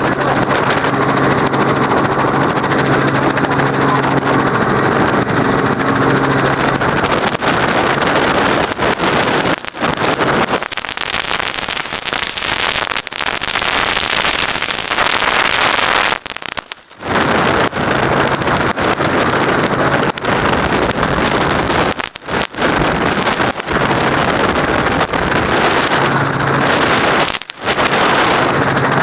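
Helicopter engine and rotor noise, loud and steady, with a low hum under it and a few brief dips in loudness in the second half.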